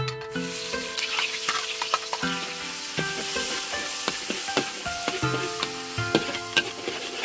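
Chopped garlic, onion and red chillies sizzling as they drop into hot oil in a wok, beginning just after the start, with a metal spatula scraping and clicking against the wok as they are stirred.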